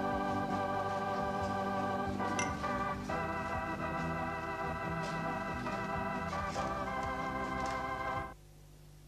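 Background music of held organ chords that change a few times, cutting off suddenly near the end.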